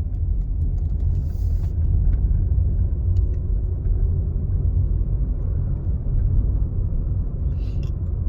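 Low steady rumble of a 2022 Volkswagen Polo 1.4 turbo with a 7-speed DSG gearbox, heard inside the cabin while driving, with a faint whine for a second or two midway. The owner likens the car's unwanted noise to a slipping clutch.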